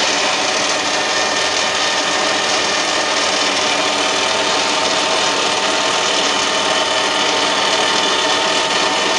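Metal lathe running with the screwcutting feed engaged, the threading tool in the bore, making a loud, steady machine noise full of hiss that starts and stops abruptly.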